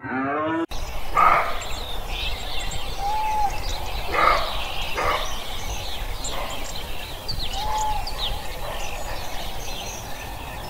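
A short pitched animal call that is cut off under a second in, then several birds chirping and calling over steady background noise, with scattered short calls and two brief arched whistles.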